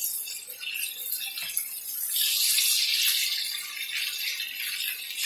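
Breaded chicken pieces deep-frying in a pan of hot oil, sizzling steadily and swelling louder about two seconds in, with metal tongs rattling against the pieces and pan as they are turned.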